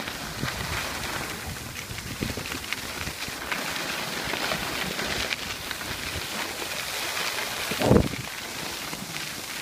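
Steady hiss of skis sliding and scraping over packed snow, mixed with wind on the microphone. A brief low thump of wind buffeting comes near the end.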